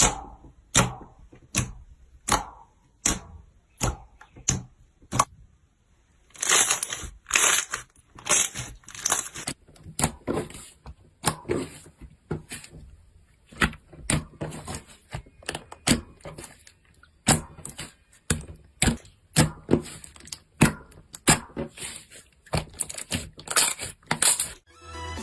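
Slime being pressed and worked by hand, giving sharp clicking pops about every three-quarters of a second, then denser crackling and popping from about six seconds in.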